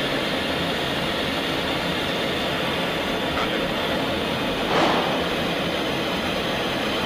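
Steady rushing noise inside a jet fighter's cockpit in flight, engine and airflow together, with one brief louder noise about five seconds in.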